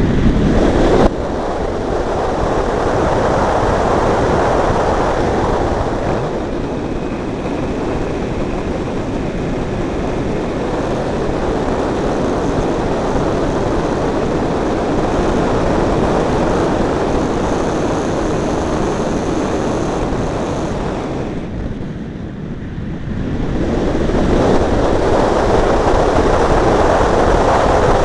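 Wind buffeting the microphone: a loud, steady rush with a short lull about three-quarters of the way through, then rising again.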